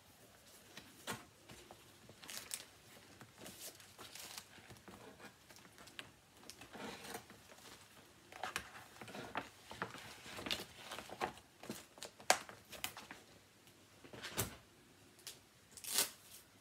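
Plastic project bags and fabric crinkling and rustling as they are handled and sorted, with scattered light clicks and knocks.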